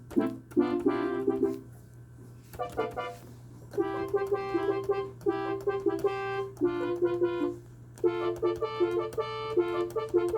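Yamaha DX7 emulation FM synthesizer app played from a keyboard: a bright, reedy patch playing short melodic phrases and chords in the middle register, with a pause about two seconds in and a shorter one near eight seconds. A steady low hum runs underneath.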